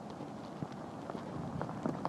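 Footsteps of a person walking, a few irregular knocks, over a steady rush of wind noise.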